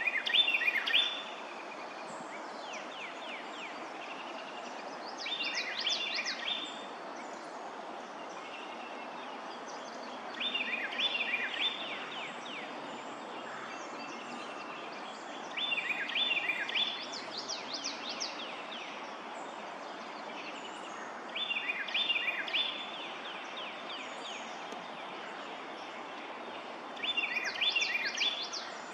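A songbird singing the same short song of quick falling notes over and over, six times, about every five seconds, over a steady background hiss.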